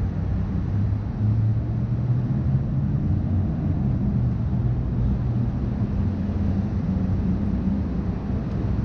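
Steady low rumble of city street traffic, with a low engine hum that shifts slightly in pitch.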